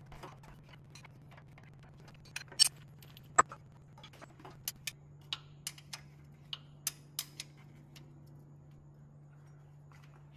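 A wrench and hand tools clicking and clinking on metal around the engine's timing belt as parts are loosened to take the belt off. Two sharp, louder clanks come about two and a half and three and a half seconds in, then a run of lighter clicks, over a steady low hum.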